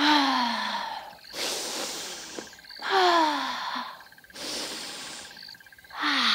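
A woman taking slow, deep calming breaths: three long out-breaths, each a falling voiced sigh, with an audible in-breath between each pair.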